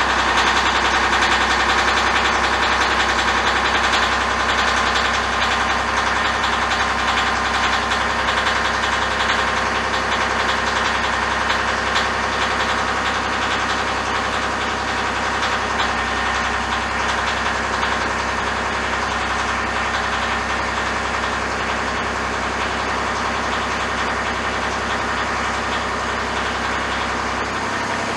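Tractor engine running steadily under hydraulic load, powering a forklift-mast elevator platform as it rises.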